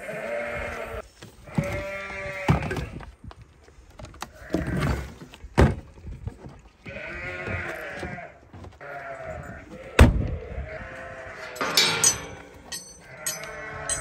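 Sheep bleating, several calls a few seconds apart, with one sharp thud about ten seconds in.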